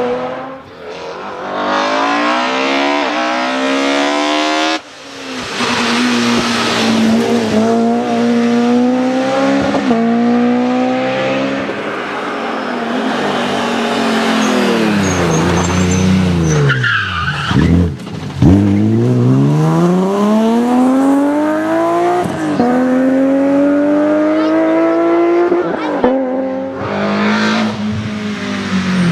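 BMW M3 rally car driven flat out: the engine revs climb and drop sharply through several upshifts, fall steeply with quick blips on downshifts under braking around the middle, then climb again on a long pull. Tyre noise and squealing from the car sliding run underneath.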